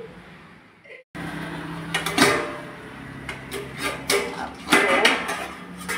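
Kitchen pots and utensils being handled: a few metal clinks and knocks over a steady low hum, starting after a brief silence about a second in.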